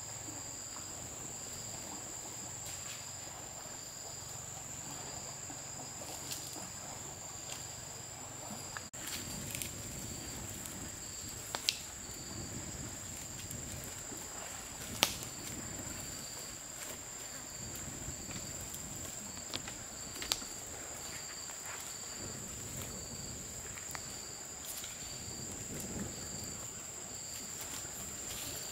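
Insects calling: a steady high-pitched trill with a regular chirp repeating beneath it, about once a second. A few sharp knocks or clicks stand out over it, the loudest about twelve and fifteen seconds in.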